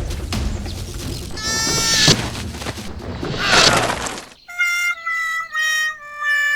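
Noisy clatter with clicks and short pitched swoops, then, about four seconds in, a short jingle of clean held notes stepping down in pitch.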